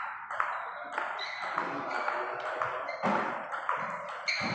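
Table tennis rally: the ball clicking off the paddles and bouncing on the table in quick alternation, about two hits a second.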